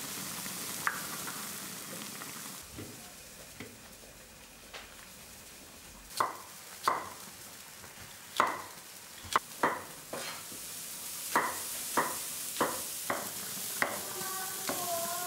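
Cleaver chopping raw potatoes into chunks on a wooden chopping board: a dozen or so sharp knocks, about one or two a second, starting some six seconds in. It opens with a soft hiss from a braise simmering in a wok.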